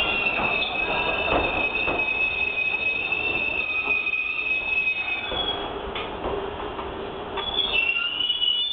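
Enoden (Enoshima Electric Railway) train rolling slowly through a station, with a steady high-pitched squeal from its wheels on the rails over the low rumble of the cars. The squeal fades about five seconds in and comes back near the end.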